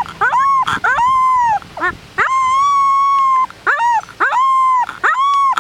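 Three-week-old Rottweiler puppy howling in displeasure: a string of high-pitched howls, each held level and then dropping off at the end, with short squeaky yelps between them. The longest howl comes in the middle.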